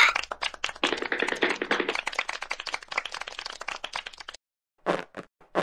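Applause sound effect: a small group clapping fast and irregularly, which stops about four and a half seconds in, followed by a few scattered single claps.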